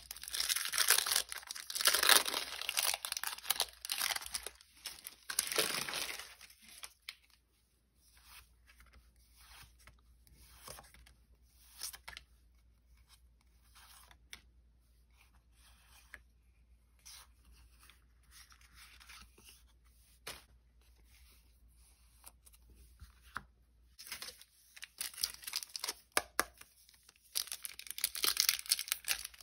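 Foil booster-pack wrappers being torn open and crinkled, loudly for the first six seconds or so and again near the end. In between come quiet scattered ticks and rustles of cards being handled and flicked through.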